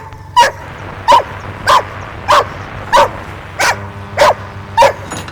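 A dog barking steadily and repeatedly, about eight sharp barks evenly spaced a little over half a second apart.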